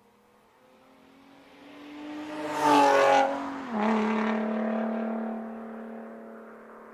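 2005 Infiniti G35's VQ V6 through a Motordyne Shockwave exhaust with ART pipes, a car going past: the engine note grows steadily louder, is loudest about three seconds in, drops in pitch just after, then fades away at a steady pitch.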